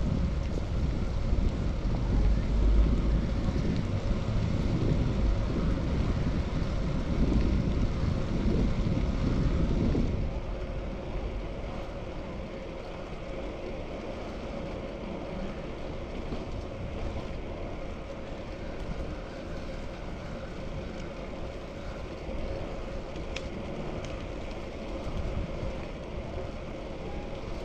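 Wind buffeting an action camera's microphone on a moving bicycle, mixed with road and traffic noise; the low wind rumble drops off sharply about ten seconds in, leaving a quieter steady noise with a faint steady tone.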